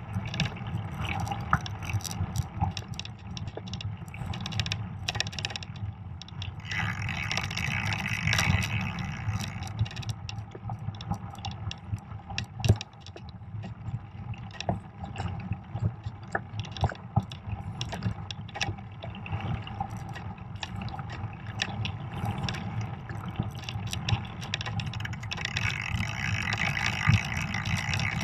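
Fat bike rolling along a snowy trail, heard from a camera mounted on the bike: a steady low rumble with frequent clicks and rattles, and a higher hiss that swells twice, about seven seconds in and again near the end.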